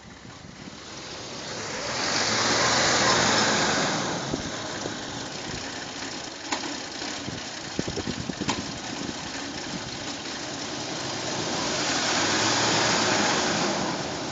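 1997 Ford Explorer engine idling roughly after a cold start, its sound swelling loud twice and easing back, with a few sharp ticks in between. The truck has a misfire that usually sets P0300-series codes.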